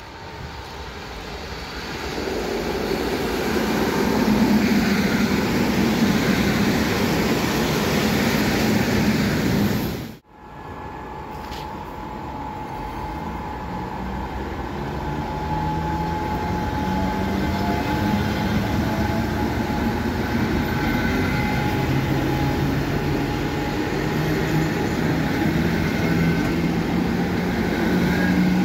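ČD class 460 electric multiple unit running in, growing louder over the first few seconds, then cut off abruptly about ten seconds in. The unit then rolls past, gathering speed, with a steady whine and a low motor hum that steps up in pitch as it accelerates away from the stop.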